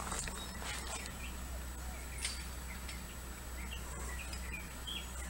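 Birds chirping in short, scattered calls over a steady low hum, with a few soft clicks in the first couple of seconds.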